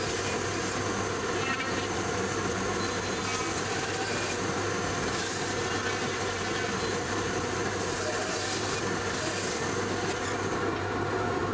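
Bandsaw running and cutting through a chunk of ash burl: an even cutting noise over a steady low motor hum.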